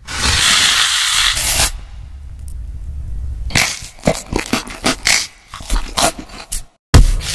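Close-miked ASMR eating: a person bites into crisp toasted bread topped with melted cheese, ham and olives and chews, giving dense, irregular crunching from about halfway in. A brief hissing noise comes before it.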